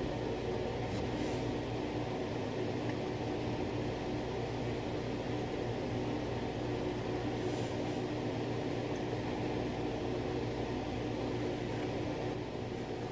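A steady low machine hum with an even hiss, unchanging throughout, with a few faint light taps.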